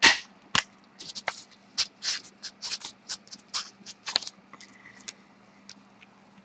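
Irregular light clicks, taps and rustles of small objects being handled, about a dozen in a few seconds, over a faint steady electrical hum.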